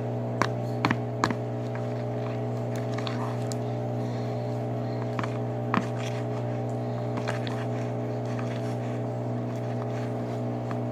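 Slime being stirred after borax activator has been mixed in: scattered sharp clicks from the mixing, three close together near the start and one more a little past halfway. A steady low hum runs underneath.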